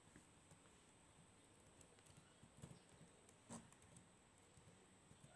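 Near silence, with a few faint laptop keyboard key clicks as a short command is typed.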